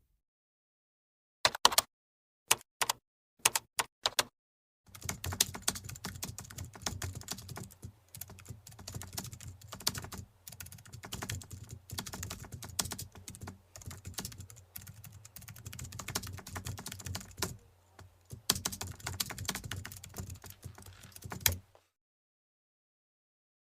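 Typing on a computer keyboard: a few separate key presses, then a long run of rapid, continuous typing over a low steady hum, stopping suddenly near the end.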